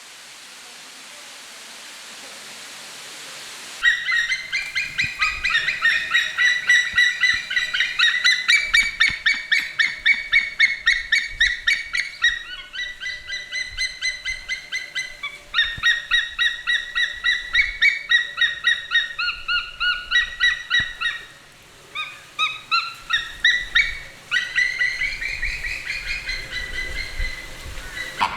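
A flock of flamingos honking in a dense, overlapping chorus of goose-like calls, several a second. They start abruptly about four seconds in after a rising hiss, and pause briefly about three-quarters of the way through.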